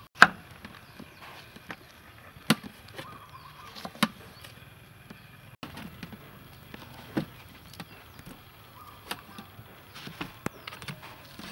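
Large kitchen knife knocking on a wooden chopping board as peeled soursop is sliced into chunks: scattered sharp knocks, the loudest just after the start, then a few more every second or two.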